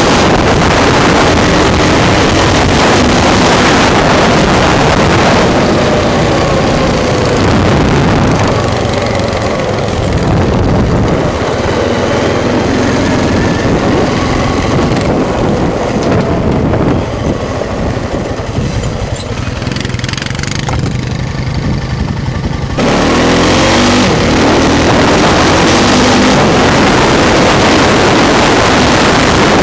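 ATV engine running hard at speed, its revs rising and falling, with heavy wind noise on a helmet-mounted microphone. It eases off for several seconds past the middle and comes back on suddenly about three quarters of the way through.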